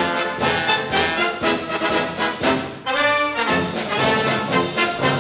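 Epic orchestral background music led by brass, with a short break about three seconds in before a held chord.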